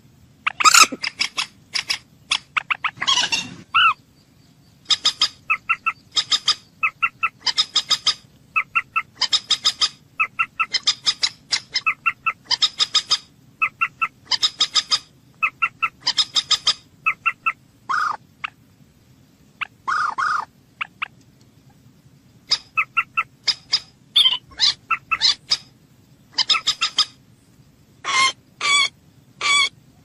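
Common moorhen calls: runs of short, sharp clucking notes, several a second, broken by a few longer, harsher calls about 3 seconds in and again near 18 and 20 seconds.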